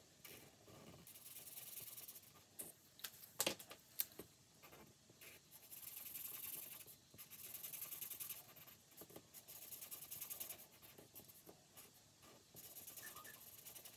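Pen on paper: faint scratching strokes in uneven stretches as a row of a savings challenge sheet is filled in, with two sharp clicks about three and a half and four seconds in.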